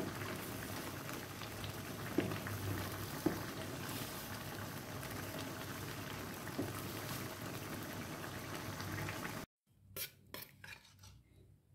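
Coconut-milk sauce simmering in a wok while a wooden spatula stirs it, with a few sharp knocks of the spatula against the pan. The sound cuts off suddenly about nine and a half seconds in, followed by a few light clinks.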